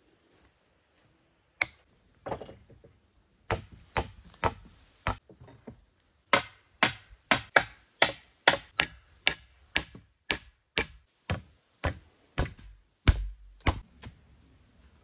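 Repeated sharp strikes on wood. A few come at uneven intervals at first, then from about halfway through they settle into a steady rhythm of about two a second before stopping near the end.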